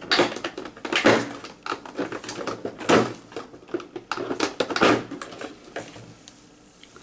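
Rummaging in a cardboard advent calendar box: a quick run of rustles, taps and clicks of cardboard and packaging being handled, dying down about five and a half seconds in.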